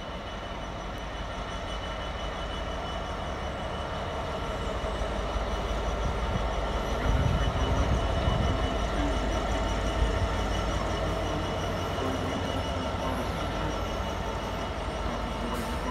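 Freightliner Class 66 diesel locomotive passing with a freight train, its two-stroke engine rumbling. The rumble builds to its loudest about seven to eight seconds in as the locomotive goes by, then the wagons roll past.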